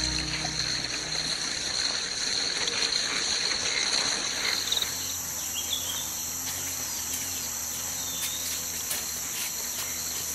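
Tropical forest ambience: a steady high-pitched drone of crickets and other insects, with a few short bird chirps in the second half.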